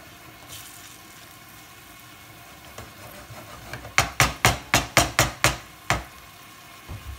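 Pepper sauce simmering quietly in the pan while it is stirred. About four seconds in, the spatula is knocked sharply against the pan's rim about eight times in quick succession, roughly four a second with the last one a little apart, to shake the sauce off it.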